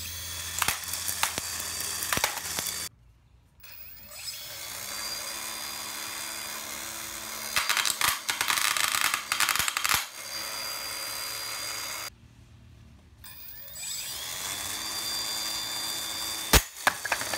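Small electric weapon motor of an antweight drum-spinner combat robot spinning its drum up with a high drill-like whine, the spinning drum clattering against foam and other objects. The whine breaks off abruptly twice between clips, and there is a sharp knock near the end.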